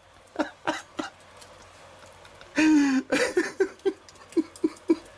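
Stifled laughter: two short bursts near the start, then a louder outburst about two and a half seconds in that breaks into a run of short ha-ha pulses, about four a second.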